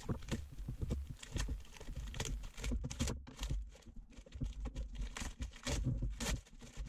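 Plastic vacuum-bag film crinkling and sealant tape tearing as gloved hands peel them off a vacuum-infusion mould: a run of irregular crackles and short rips.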